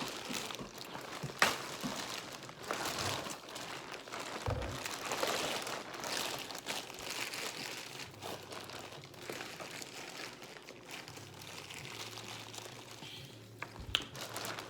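Crab shells being cracked and picked apart by hand while eating a seafood boil, with steady crinkling and rustling and scattered sharp cracks, the sharpest about a second and a half in and again near the end.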